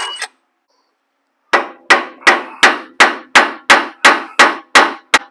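Hammer blows on steel steering linkage, striking the arm to shock a tie rod end's tapered stud loose. The rapid, evenly spaced strikes begin about a second and a half in, about three a second, each with a short metallic ring.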